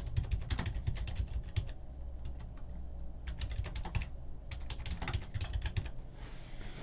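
Typing on a computer keyboard: irregular runs of key clicks with short pauses between, over a low steady hum.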